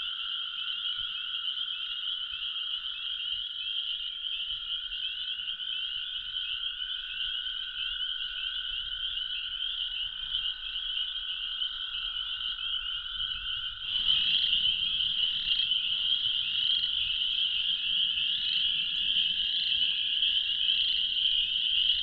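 Spring frog chorus: a dense, steady high peeping of spring peepers, with toads giving a long, steady lower trill underneath. About two-thirds of the way through the chorus suddenly gets louder and a low rumble comes in, while the toad trill turns fainter and broken.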